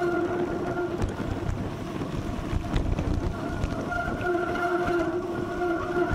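Mountain bike being ridden, with wind rumbling over the action camera's microphone and a steady humming whine from the bike. The whine drops out about a second in and comes back after a couple of seconds.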